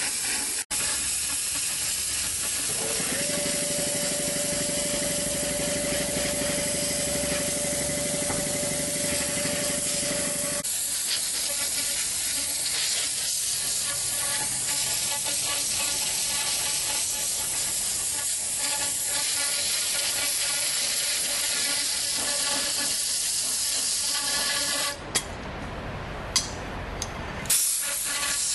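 Compressed air gun blowing a steady hiss through a resin pickup tube's mesh strainer, clearing out resin loosened by soaking in a solvent stripper. For several seconds a steady whistle rides on the hiss. Near the end the hiss drops away briefly into a low rumble with a few knocks.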